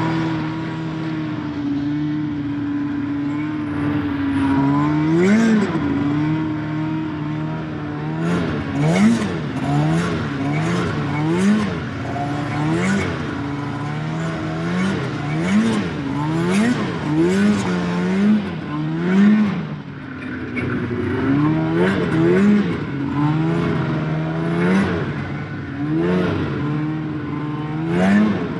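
Snowmobile engine running at a steady speed, then revved up and let off again and again, roughly once a second, from about four seconds in.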